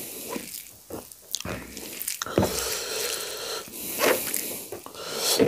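Cooked rice and saag being mixed and squeezed by a bare hand: irregular wet squishing with small sticky clicks.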